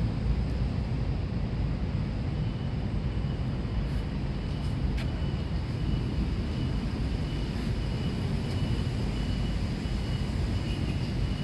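Steady low outdoor rumble, with a faint thin high-pitched tone coming in about two seconds in and a couple of faint ticks.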